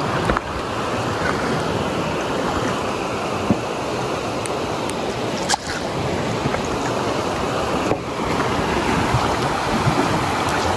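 Steady rush of flowing river water, with a few brief light knocks.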